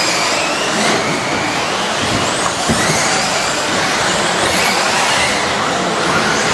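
Several electric off-road RC buggies racing on an indoor carpet track, a mass of high motor whines rising and falling in pitch as they speed up and slow down, with a few light knocks.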